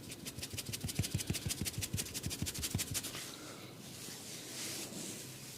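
Barber's hands on a client's head during a head massage: a quick, even run of light pats or taps, about six a second, for roughly three seconds. These give way to softer rubbing and scratching through the hair.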